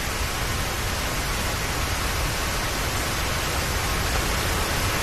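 Steady rain pouring down: an even, continuous hiss of heavy rainfall.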